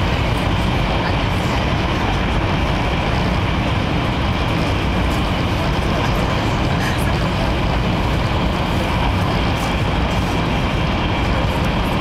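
Steady rumble and rushing noise heard inside the passenger cabin of a Taiwan High Speed Rail 700T train running at high speed.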